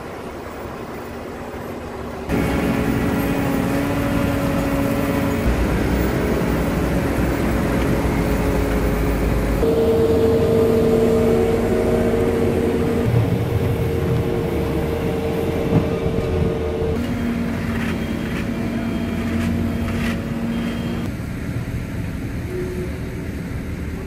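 Diesel engines of asphalt paving machinery (paver, dump truck, roller and skid steer) running steadily with a constant hum. The mix changes abruptly about two seconds in and again later on, as different machines come to the fore.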